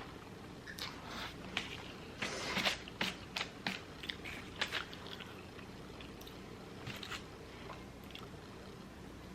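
A person chewing and eating food close to the microphone, with irregular mouth clicks and smacks that are busiest in the first half and sparser toward the end.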